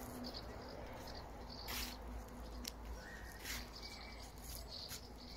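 Quiet outdoor ambience with birds chirping now and then, broken by a few soft clicks or taps.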